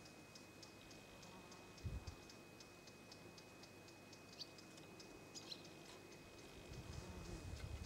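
Near silence with faint, even ticking about four times a second, two brief high chirps in the middle, a low bump about two seconds in, and low rumbling near the end.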